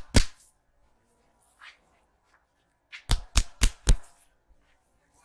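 Barber's hands striking in an Indian head massage: a sharp slap just after the start, then a quick run of four slaps, about four a second, some three seconds in.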